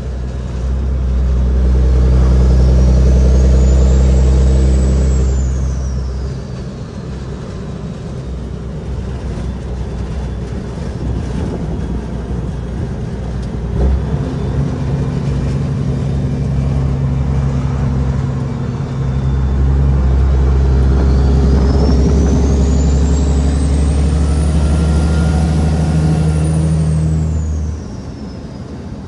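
Cat 6NZ inline-six diesel in a loaded Kenworth W900L, pulling hard twice with a quieter, lighter-load spell in between. During each pull a high whistle rises and then falls away.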